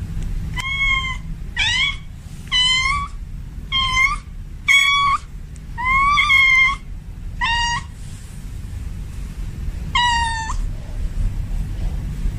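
Tomcat in heat giving mating calls to a female: a string of short meows, about eight, some sliding upward in pitch, with a pause of about two seconds before the last one. A steady low hum runs underneath.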